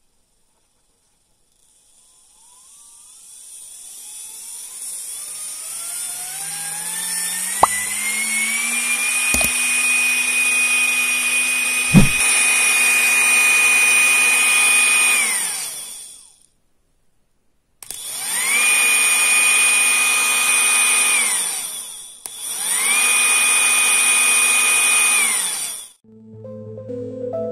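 Small brushed DC motor with a plastic blade on its shaft, run from a bench power supply. Its whine climbs steadily in pitch as the voltage is turned up to about 32 V, holds steady, then winds down. It then runs twice more for about three seconds each, spinning up and down quickly. Three sharp clicks come during the first run, the loudest about twelve seconds in.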